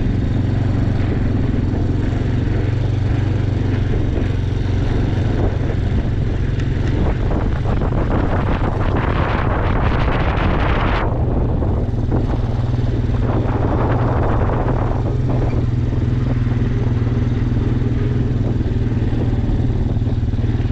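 A motor vehicle engine running steadily with a low hum, with two spells of louder rushing noise, the first from about eight to eleven seconds in and a shorter one a few seconds later.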